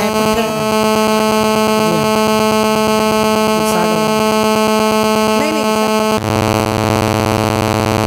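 Loud, steady electronic buzz with a fast rasping pulse. Its tone changes abruptly about six seconds in. A few faint short chirps from the parrots are heard underneath.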